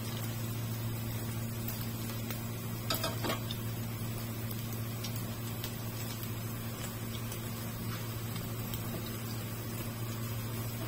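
Minced-chicken patties sizzling in oil in a nonstick frying pan, with a metal spatula scraping and clinking against the pan, loudest about three seconds in. A steady low hum runs underneath.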